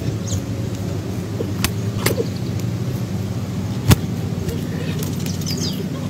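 Steady low motor hum, with three sharp clicks, the loudest about four seconds in. Brief, faint high chirps falling in pitch come near the start and near the end.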